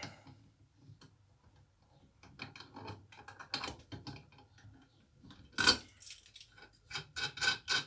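Quick metallic clicks and clinks of a self-adjusting universal wrench working a nut on a bolt, with a louder metal clatter about five and a half seconds in.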